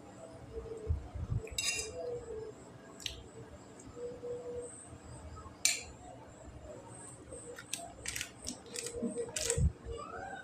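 A metal spoon clinking and scraping against a ceramic plate while eating, with a few scattered sharp clinks and a quick cluster of them near the end, plus some soft low knocks.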